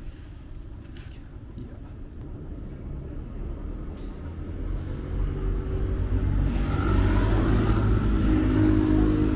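A motor vehicle's engine rumbling and growing steadily louder as it approaches, loudest over the last few seconds.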